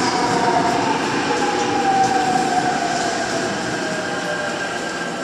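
Seoul Subway Line 5 electric train running into the station alongside the platform, with a steady rumble of wheels on rail. A whine glides slowly down in pitch as the train slows to stop, and the sound eases off gradually.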